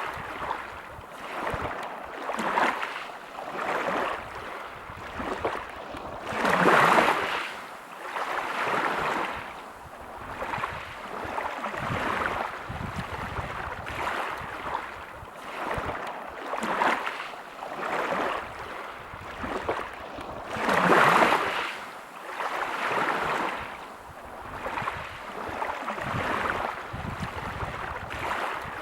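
Sea waves breaking and washing back over a pebble beach, a rushing noise that swells and fades every couple of seconds. Two larger waves break about a quarter of the way in and again near three quarters.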